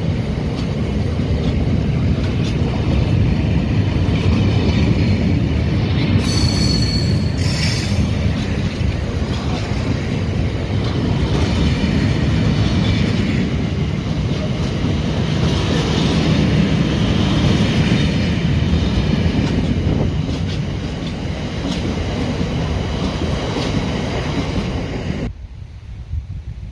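Freight train of open box wagons running past at speed: the steady noise of steel wheels on rail, with a high wheel squeal about six seconds in. Near the end the sound drops suddenly to a much quieter background.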